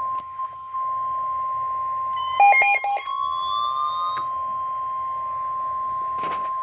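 Weather radio sounding the steady single-tone warning alarm (the 1050 Hz NOAA Weather Radio alert tone) that heralds a severe thunderstorm warning. About two and a half seconds in, three short beeps sound over it, followed by a brief rising tone, and there is a short rustle near the end.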